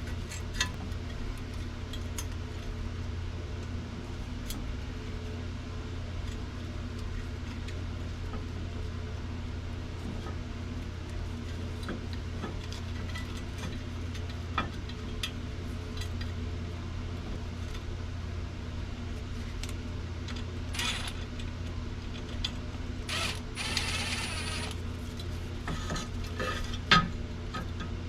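Hand tools working on metal machine parts: scattered sharp clicks and clinks, a short rasping burst about two-thirds of the way through and a louder knock near the end, over a steady low hum.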